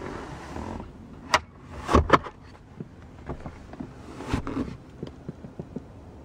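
Plastic clicks and knocks from a car's rear fold-down armrest and its trunk pass-through hatch being handled. There are three sharp knocks, the loudest about two seconds in with a dull thump, and smaller taps and rustling between them.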